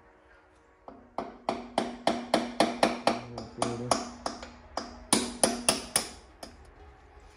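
A run of sharp metallic knocks, about three a second, over a steady hum, from tool work on a small engine's flywheel as it is fitted onto the crankshaft.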